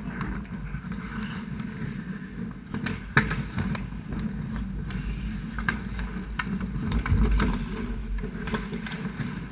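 Ice hockey scramble at the goal mouth heard from a camera fixed on the net: skates scraping the ice and sticks and puck clacking against pads and net, over a constant low rink rumble. A sharp crack stands out about three seconds in, and a heavier low thump comes around seven seconds.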